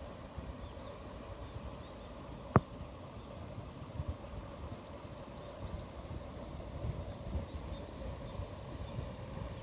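Outdoor ambience: a steady high-pitched insect drone, with a run of short repeated chirps at about four a second and a single sharp click about two and a half seconds in.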